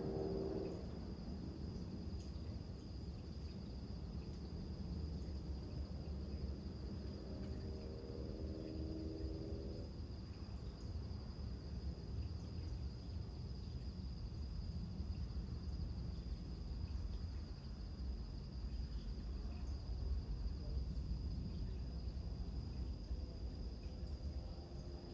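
Crickets chirring steadily over the continuous low rumble of surf breaking on rocks. A bullfrog's low, pitched call is cut off about a second in, and another sounds about seven seconds in, lasting about two seconds.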